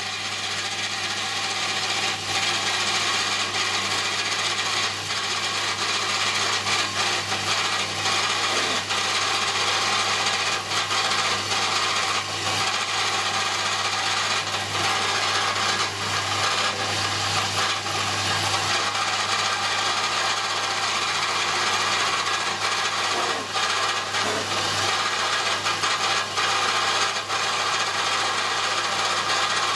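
Milling machine running, its end mill cutting a slot in a brass workpiece. It makes a steady, noisy mechanical sound, with a bit of belt noise from the machine's drive.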